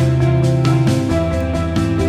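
Instrumental background music: sustained notes over a bass line that changes note about halfway through.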